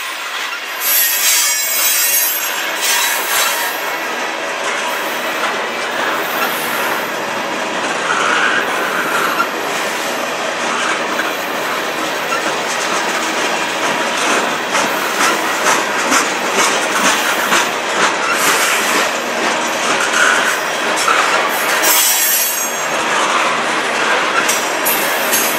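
Freight train of tank cars rolling past close by: steel wheels rumbling and clicking over the rail joints, with a brief wheel squeal a few times.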